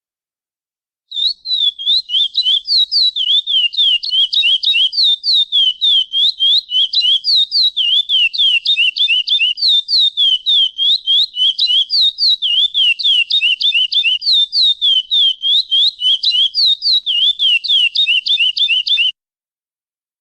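Chestnut-bellied seed finch (curió) singing a 'praia clássico' song: a long, rapid run of clear whistled notes, each sweeping down and up in pitch, about five a second. The song starts about a second in and stops suddenly near the end.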